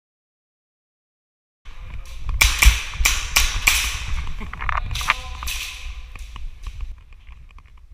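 Airsoft pistols firing a string of sharp shots, several in quick succession and a couple more a little later. They start abruptly after about a second and a half of dead silence and die away near the end.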